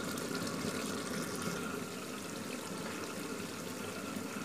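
Duck curry simmering in an open aluminium pressure cooker on a gas stove: a steady low hiss and bubble of the thick masala cooking down.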